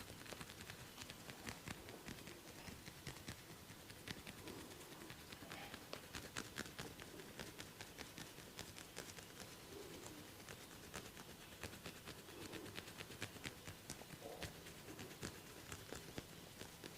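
Faint, rapid, irregular soft clicks and taps of hands working on a person during a massage.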